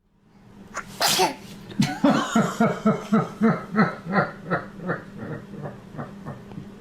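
A baby's sneeze about a second in, then a run of rhythmic laughter, about three pulses a second, fading out.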